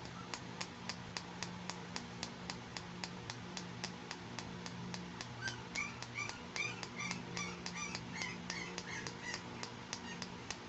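Fingernails tapping on a hard pink plastic toy bandage, an even run of light clicks at about three to four a second. Over the middle few seconds short high squeaks join the clicks.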